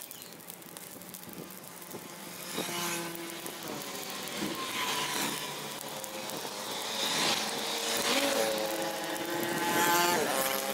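Small petrol engines of grass-cutting machines running, their pitch rising and falling with the throttle. It grows louder about two seconds in and again near the end.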